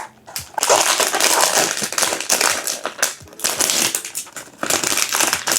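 Blind-box packaging being opened by hand: irregular crinkling and tearing, in three stretches with short pauses between.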